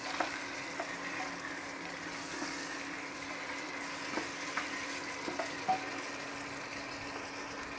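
Pieces of meat sizzling in hot oil in a pressure cooker pot while being stirred with a spatula, with a few short scrapes and knocks of the spatula against the pot. A faint steady hum runs underneath.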